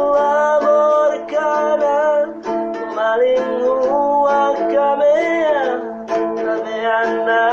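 A voice singing a slow melody, holding long notes, with a gliding phrase about five seconds in, over strummed plucked strings.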